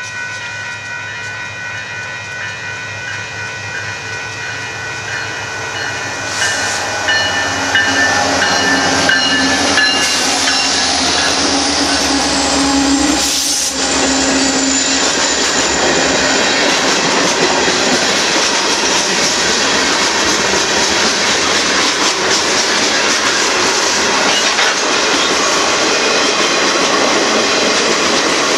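Union Pacific freight train passing close over a grade crossing: the locomotives go by and then a long string of freight cars clatters over the rails, loud and steady, after the noise builds up about six to eight seconds in. At the start, before the train noise covers it, a set of steady high pulsing tones is heard, fitting the crossing's warning bell.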